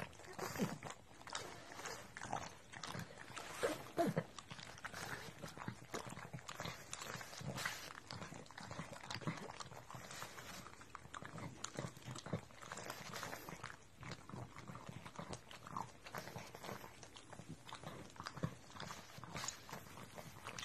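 Pugs licking each other's faces: a continuous, irregular run of small wet smacking and clicking mouth noises.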